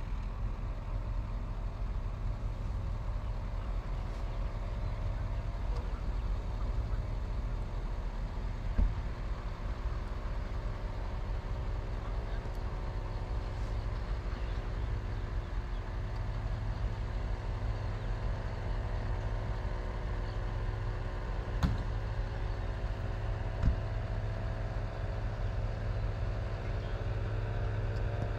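Distant paramotor engine droning steadily, its pitch wavering slightly near the end as it comes closer, over a low wind rumble on the microphone with a few faint knocks.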